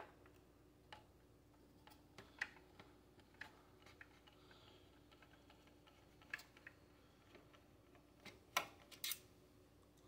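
Sparse, faint clicks and ticks of a screwdriver and small metal parts being worked inside a desktop PC case, a few seconds apart, with two sharper clicks near the end, over a faint steady hum.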